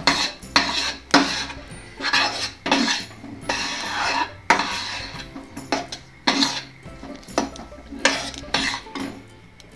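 Metal spatula scraping and stirring a thick gram-flour mixture in a nonstick frying pan, in repeated strokes about one to two a second. Soft background music underneath.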